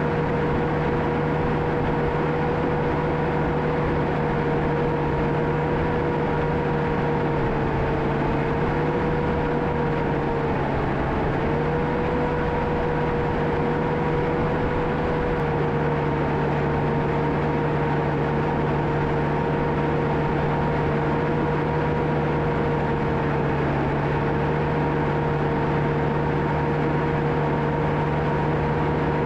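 John Deere 650K crawler dozer running steadily under work, a low engine hum with a high whine on top that dips slightly in pitch a few times as the machine takes load.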